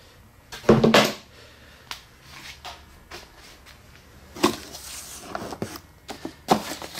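A plywood shipping crate being opened: the wooden lid comes off with loud knocks about a second in. Then come lighter knocks and rustling as the packed contents are handled, with sharp knocks about two-thirds of the way through and near the end.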